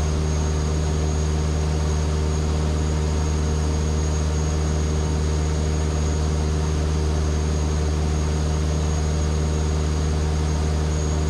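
Steady drone of a Van's RV-7A's piston engine and propeller heard inside the cockpit in flight, holding one pitch throughout.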